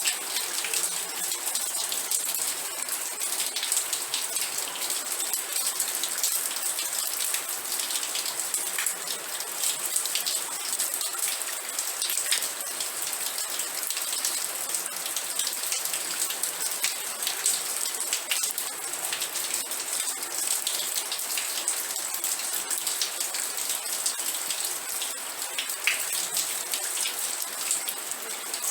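Steady rain falling on a surface: a dense, even patter of countless small drop hits, with no let-up.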